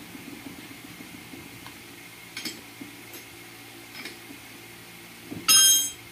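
Light metallic clinks as the metal parts of a tractor starter motor are handled and fitted during reassembly, followed about five and a half seconds in by one loud, ringing metallic clang.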